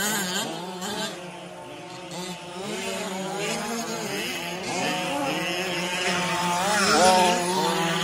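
Several radio-controlled 4WD trucks racing, their motors whining and rising and falling in pitch as they speed up and slow down. The sound is loudest about seven seconds in, over a steady low hum.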